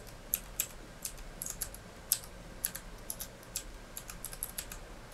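Computer keyboard typing: irregular keystrokes, a few a second, with short pauses between them.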